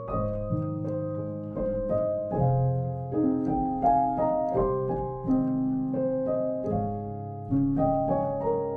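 Background music: a gentle piano tune, notes struck and left to ring over a held bass.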